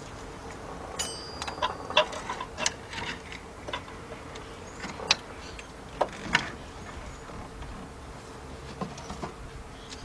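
Scattered light metallic clicks and knocks as a Dodge Dakota's 3.9 engine is lowered on an engine hoist into the engine bay. They come in a cluster with a brief squeak about a second in, then as single knocks, over a faint steady hum.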